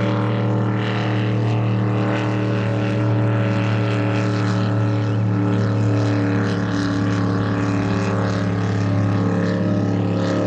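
Racing powerboat's five-litre Chevrolet V8 running at high speed on a fast pass, a steady, loud engine note that holds without a break.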